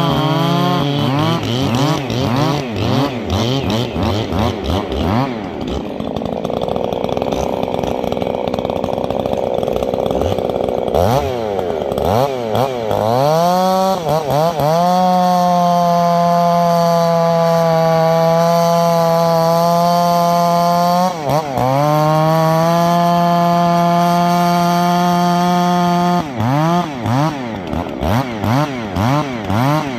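Two-stroke chainsaw running hard: quick throttle blips at first, a rougher, lower-pitched stretch, then held at high revs for several seconds at a time with one short drop near the middle. It ends with a run of quick blips again.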